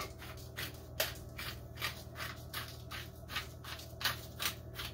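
Pepper grinder being twisted to crack black pepper: a short crunching rasp with each twist, about three a second.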